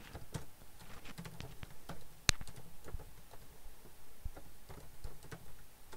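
Typing on a computer keyboard: irregular key clicks, with one sharper, louder click a little over two seconds in.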